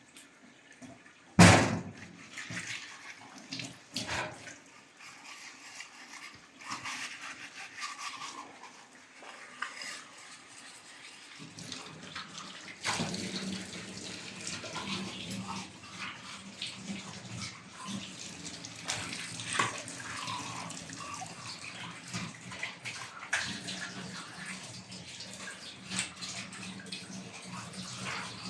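Water splashing and running, with a loud knock about a second and a half in and scattered smaller knocks; a steady low hum joins about eleven seconds in.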